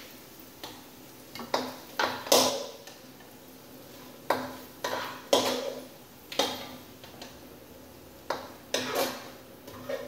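A spatula knocking and scraping in a stainless skillet as fried ham is lifted out into a strainer pan: about a dozen sharp knocks at uneven intervals, some in quick pairs, each followed by a short metallic ring.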